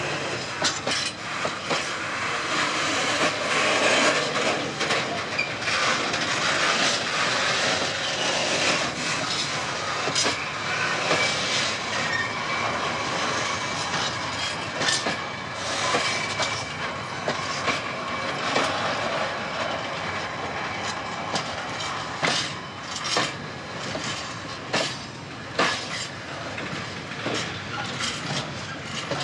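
Covered hopper freight wagons rolling past close by. Their steel wheels give a steady rushing rumble on the rail and clatter over the rail joints in clickety-clack knocks, which stand out more sharply in the last few seconds.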